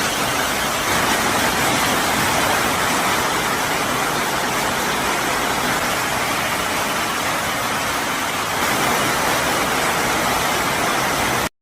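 Hail pelting down in a heavy storm, a loud, dense, steady rush of countless impacts with no single strike standing out.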